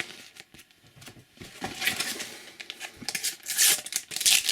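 Paper stickers and a sticker packet rustling and crinkling as they are handled and flipped through, in quick bursts starting about a second and a half in.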